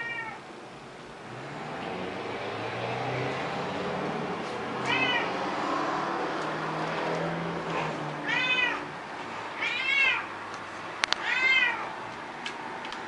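An elderly house cat, 16 years old, meowing about five times in drawn-out calls, asking for water. A steady low hum runs under the middle stretch, and two sharp clicks come just before the last meow.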